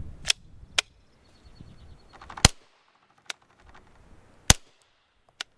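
Two suppressed 9mm pistol shots from a SAR9 SOCOM with a Rugged Obsidian 9 suppressor in short configuration, about two seconds apart, each with a short echo. Sharp metallic clacks come before and between the shots. In this configuration the pistol is failing to cycle and eject.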